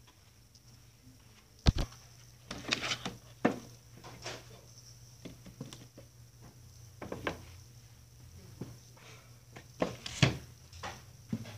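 Books being taken from and knocked against a wooden display shelf: scattered sharp knocks and short rustles, the loudest about two seconds in and again about ten seconds in, over a steady low hum.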